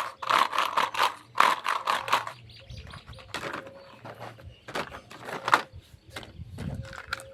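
Small plastic toy kitchen pieces and their packaging being handled: bursts of quick clicks and rattles, some in tight clusters, with pauses between them.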